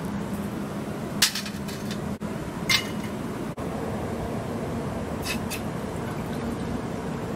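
A few sharp metal clinks as a stainless steel cup and wire grill are set on a small folding camp stove, then water poured into the cup, over a steady background hiss.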